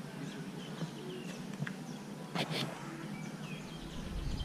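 Many birds chirping, short high calls scattered throughout over a low background hum. Two sharp clicks come a little past halfway, and a low rumble builds near the end.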